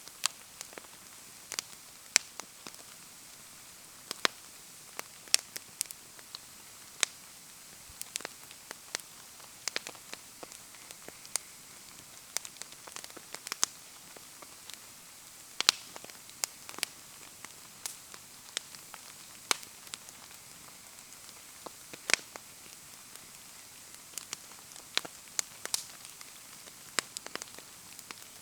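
Wood bonfire crackling with sharp, irregular pops over a steady hiss of falling rain.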